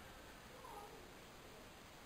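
Near silence: a steady faint hiss, with one faint short call partway through.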